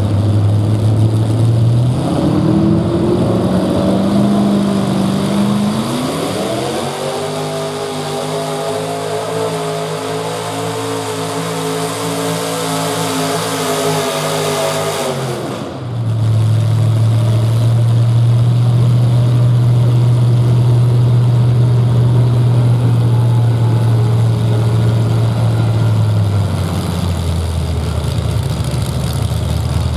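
Modified pulling tractor's engine revving up in steps as it launches the sled, then running at high revs under full load for about nine seconds. The throttle is cut suddenly about sixteen seconds in, and the engine drops to a loud, steady low idle that settles lower near the end.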